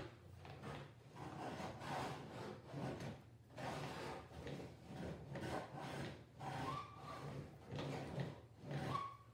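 Home-built wooden printing press being run back and forth along its rails: repeated wooden rubbing and rolling strokes, with two short squeaks in the second half.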